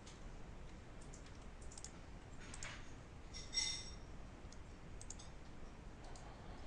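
Faint, scattered clicks of a computer mouse and keyboard, a handful spread irregularly over several seconds, the loudest about three and a half seconds in.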